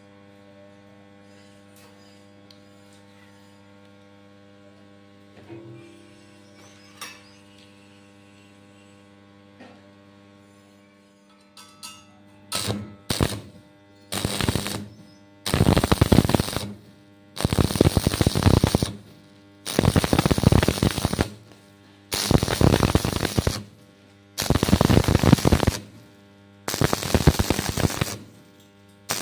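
A steady electrical hum, then stick-welding arc crackling in repeated short runs: seven or eight bursts, each about a second and a half long, with brief pauses between them.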